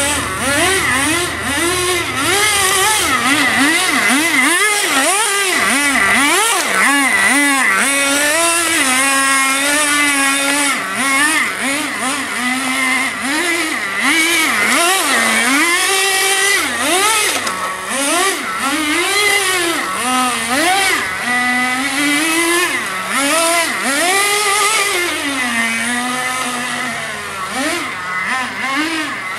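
Radio-controlled Subaru car revving up and down over and over as it is driven, its pitch swooping up and falling back about once a second, with a few short stretches held steady.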